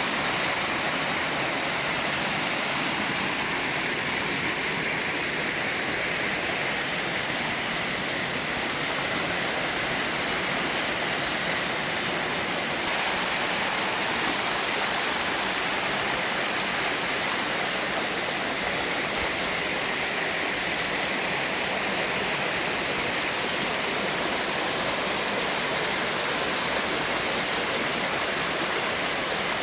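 Mountain-stream twin waterfall pouring steadily: an even, unbroken rush of falling water.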